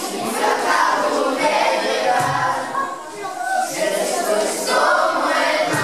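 A group of children singing together as a choir.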